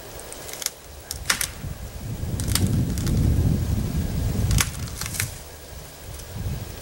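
Red oak being pulled over its hinge cut with a habitat hook: about half a dozen sharp cracks and snaps of wood and branches, spread over several seconds. A low rumble of wind on the microphone swells in the middle.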